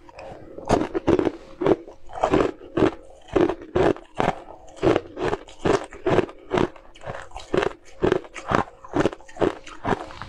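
Close-up crunching of a mouthful of frozen green ice bar between the teeth. It is a rapid, even run of crisp crunches, about three a second, starting just under a second in.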